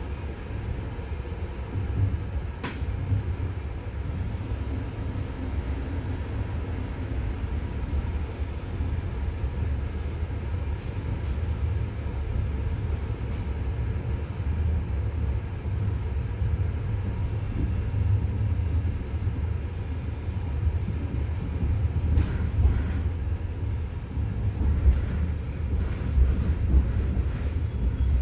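Passenger train running: a steady low rumble, with a few short sharp clicks now and then.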